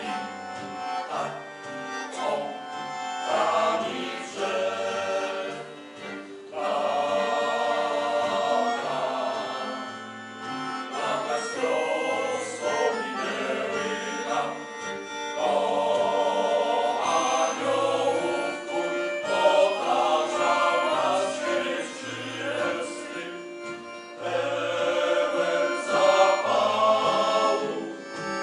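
Male choir singing a Polish song in unison phrases, accompanied by accordion and acoustic guitar with a steady rhythmic bass line.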